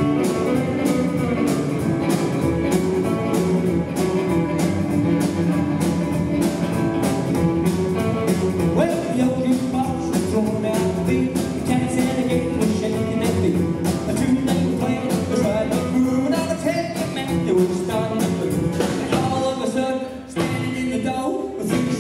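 Live rockabilly band playing with upright double bass, drums and electric guitars, on a steady beat. The band drops out for a moment near the end.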